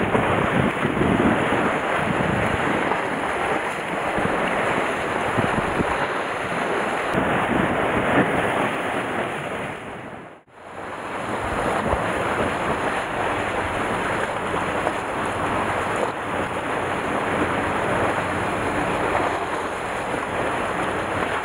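Sea surf washing and splashing among the concrete tetrapods of a breakwater, with wind buffeting the microphone. The sound drops out for an instant about halfway through, then the surf and wind carry on.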